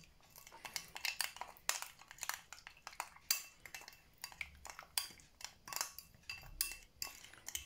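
Metal spoon stirring a thick spice marinade in a small glass bowl: irregular clinks and scrapes of metal on glass, a few a second.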